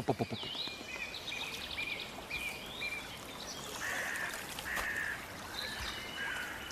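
Songbirds calling in woodland: a run of short chirps and whistles, quick trilled notes in the first half and lower whistled phrases in the second.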